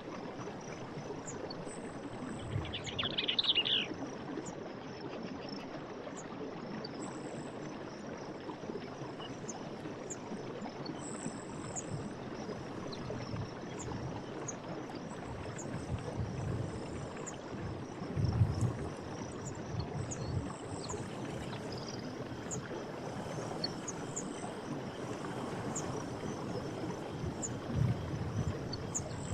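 Night forest ambience: a steady rush of running water with faint insect chirps throughout, a brief animal call about three seconds in, and a few low sloshing swells later on.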